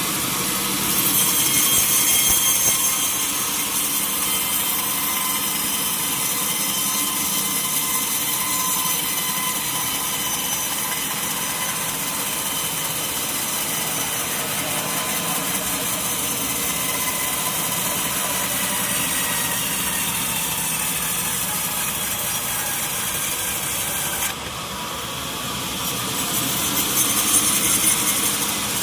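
Sawmill saw cutting through a mahogany log: a continuous machine rasp with a steady whine. It grows louder about a second in, eases suddenly about 24 seconds in, then swells again near the end.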